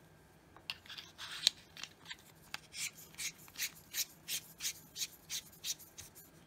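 Convoy C8 flashlight's threaded tail cap being screwed on by hand: a few irregular scrapes and clicks, then a steady run of short rasping strokes of thread on thread, about three a second.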